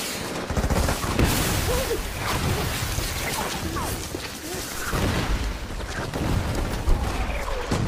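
Battle soundtrack of dense small-arms and machine-gun fire with booms, and men's voices shouting through it.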